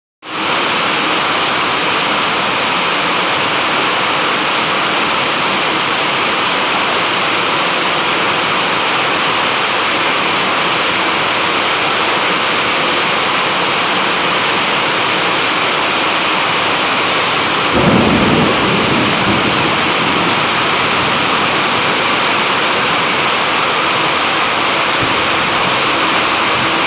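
Steady rain with a thunderstorm: one roll of thunder breaks in about 18 seconds in and dies away over a few seconds.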